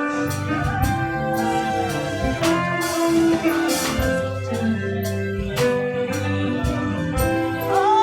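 Live worship band music: a slow gospel song with guitar and drums, the chords held and changing, and a sung or wavering melody line rising near the end.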